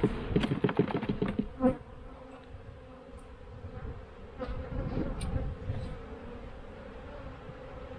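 Honeybees buzzing steadily in a crowd around an open hive, robber bees drawn in from other colonies. In the first two seconds a run of clicks and knocks comes from the wooden hive frames being handled.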